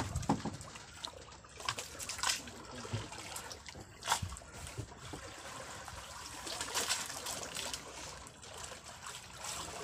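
Sea water lapping and sloshing against the side of an outrigger fishing boat's hull, with irregular small slaps and splashes.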